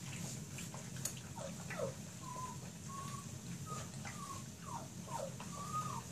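A litter of whippet puppies whimpering and squeaking as they feed: a string of about ten short, high cries, several sliding downward, with a few faint clicks. A steady low hum runs underneath.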